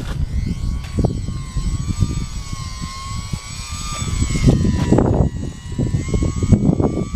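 Small brushless electric motor and propeller of an E-flite UMX P-51 RC plane whining in flight, its pitch wavering up and down as the plane is tossed about and passes by. Heavy, gusty wind buffets the microphone, and this is the loudest sound.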